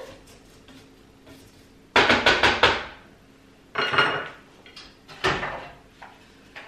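Spatula knocking and scraping against the stainless-steel bowl of a kitchen machine, a quick run of taps about two seconds in. Then a clatter with a short ring as the spatula is laid on a plate, and another knock a second later.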